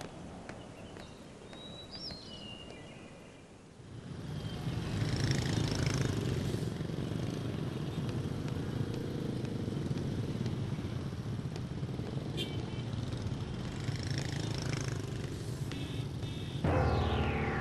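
A few faint bird chirps, then an engine starts running steadily at an even pitch from about four seconds in. Music comes in near the end.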